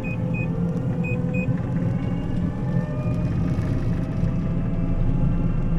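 Combine engine running steadily under road travel, heard from inside the cab, with three short electronic beeps in the first second and a half.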